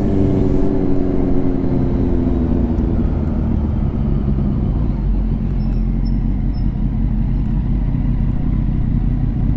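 Car driving: the engine note falls over the first three seconds as the car slows, then steady low road and tyre rumble.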